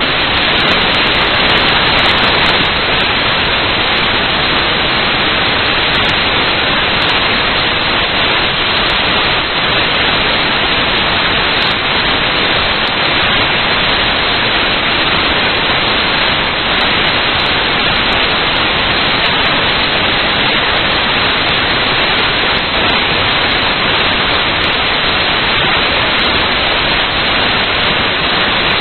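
Loud, steady static hiss that stays even throughout, with no distinct machine sound standing out of it.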